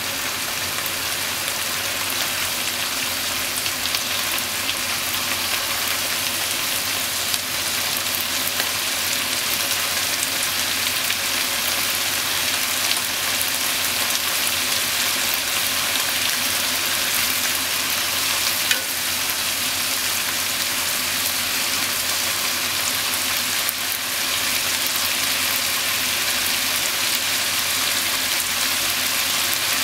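Sliced pork and onion sizzling in a frying pan: a steady frying hiss that grows slightly louder, with a few small pops.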